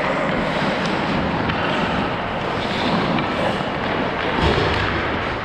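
Rushing noise of skating on an ice rink, picked up by a GoPro worn by the skater: air moving over the microphone mixed with skate blades on the ice, steady throughout.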